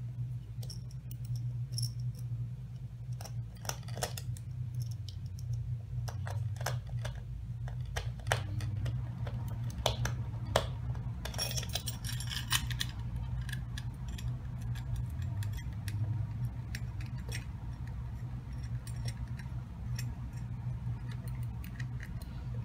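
Irregular small clicks and scrapes of a screwdriver driving a wood screw into a wooden mousetrap base as a battery holder is fastened on, with hands handling the parts. Under them runs a steady low hum.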